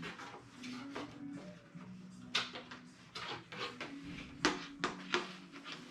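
Irregular light clicks and knocks of a composite glider wing and fuselage being handled and fitted together. Two sharper taps stand out, one about two seconds in and one just past halfway, over a faint low hum.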